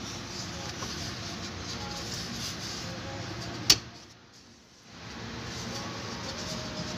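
A single sharp plastic click about halfway through, a clip at the glovebox opening snapping into place, over a steady background hiss with faint voices.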